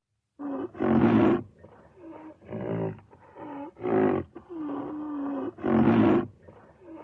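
Rhinoceros calling: a run of about seven loud, rough pitched calls, roughly one a second, with a longer steady call in the middle, after a brief silence at the start.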